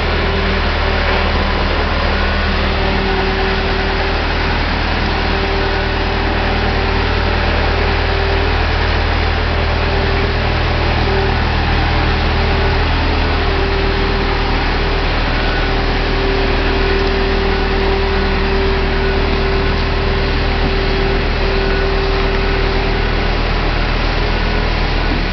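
Marine travel hoist's engine running steadily under load as it lifts and carries a boat in its slings, a low drone with a whine that comes and goes over it.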